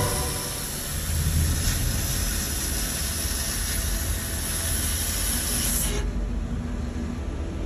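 Fiber laser cutter cutting 1/2-inch carbon steel plate: a steady hiss of the cut and its gas jet over a low machine hum. The hiss drops away about six seconds in as the cut finishes.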